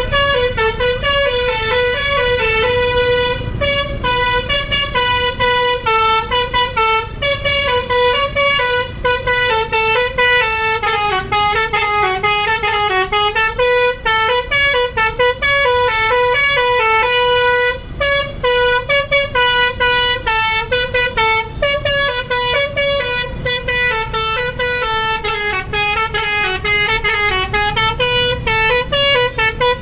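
Bus telolet horn (Basuri type) playing a melody: a rapid run of horn notes stepping up and down in pitch, with short breaks between phrases, over a low rumble.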